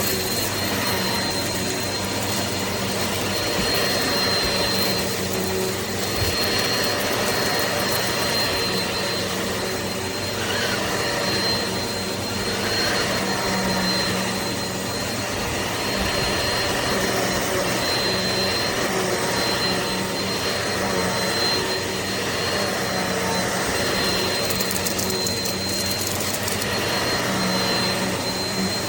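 Eureka PowerSpeed bagless upright vacuum cleaner running steadily: a continuous motor rush with a thin high whine held at one pitch.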